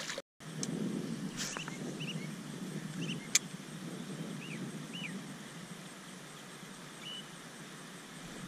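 Steady low outdoor background rumble, with a few short high chirps scattered through it and a single sharp click about three seconds in.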